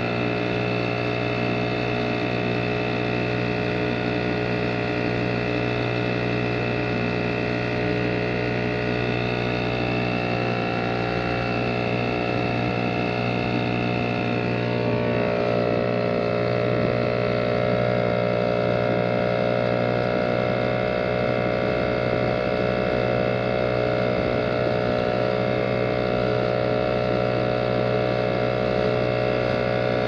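British Seagull two-stroke outboard motor running steadily, pushing the small boat along under way, with water noise from the hull; it gets a little louder from about halfway.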